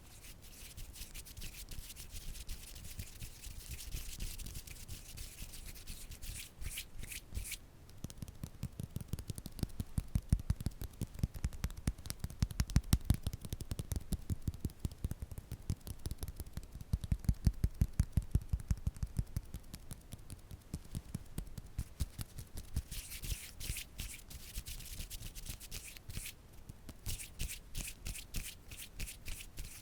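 ASMR tapping and scratching: rapid taps throughout, with deeper, louder thuds in the middle stretch and short spells of fast, hissy scratching near the start and again near the end.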